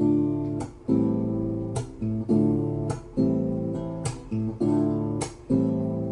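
Recorded acoustic guitar strumming chords in a repeating rhythm, played back over Wharfedale Denton 80th Anniversary speakers.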